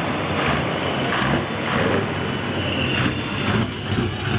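Scania R500's V8 diesel running at low speed through straight-through exhaust pipes as the truck creeps past, a steady low engine note with loud exhaust pulses.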